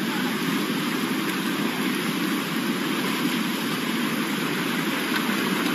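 Fast-flowing, high muddy river rushing steadily past, a continuous even noise of moving water.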